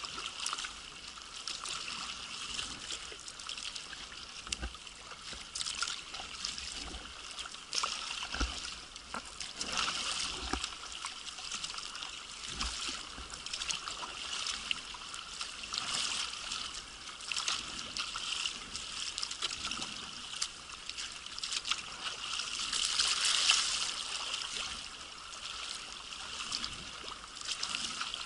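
Water trickling and splashing around a sea kayak being paddled, with drips off the paddle and small waves against the hull. The splashing comes in many small ticks, with a louder patch near the end.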